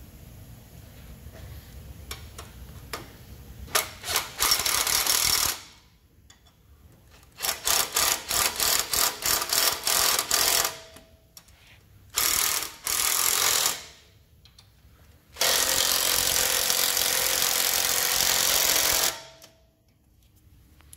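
Makita cordless impact wrench hammering in four bursts, the last and longest about four seconds, running bolts tight on the rear suspension.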